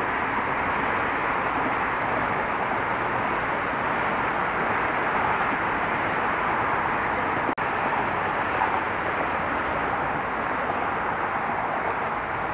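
Steady hiss of road traffic, cars passing continuously with no single vehicle standing out. It cuts out for an instant about seven and a half seconds in.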